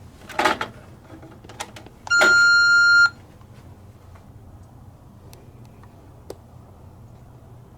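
A single electronic beep, one steady tone lasting about a second, after a short rustle and a few light clicks of handling.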